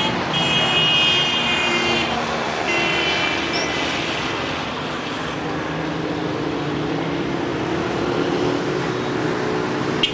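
A moving vehicle's engine runs steadily under road noise, its pitch rising slightly in the second half. A high, multi-note tone sounds twice in the first four seconds.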